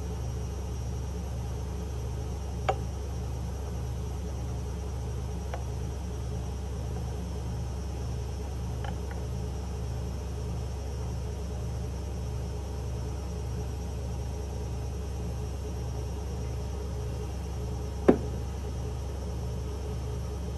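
A steady low machine hum with a soft regular pulse, broken by a light clink about three seconds in and a sharper clink near the end.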